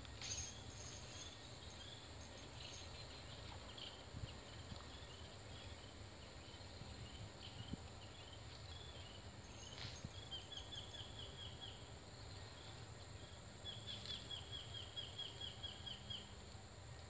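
Outdoor ambience: a bird calling in quick runs of short repeated chirps, about five a second, over a steady high insect drone, with a few soft knocks now and then.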